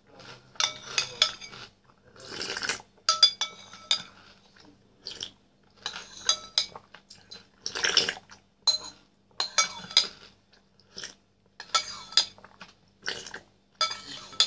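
Metal spoon clinking and scraping against a ceramic cereal bowl, about once a second, each clink ringing briefly. Between them come the noisier sounds of eating chocolate cereal balls in milk.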